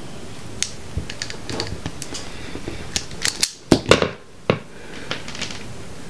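Small clicks and snaps of hands working a terminal onto a thin automotive wire, with a cluster of sharper clicks about three and a half to four and a half seconds in, over a steady hiss.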